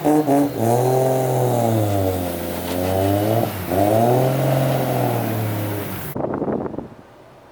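Car engine revving, the revs rising and falling in several slow swells, cutting off sharply about six seconds in.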